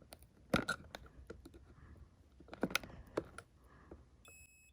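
Plastic clicks and taps of a smoke alarm being handled and its test button pressed, with a brief high-pitched electronic beep near the end.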